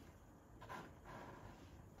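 Faint scraping of a painting knife laying paint onto canvas, two soft strokes about halfway through.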